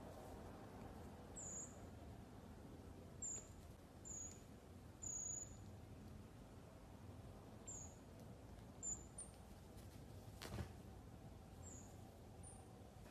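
Common marmosets giving short, very high-pitched chirps, about nine scattered through, each slipping slightly down in pitch. A single soft knock about ten seconds in.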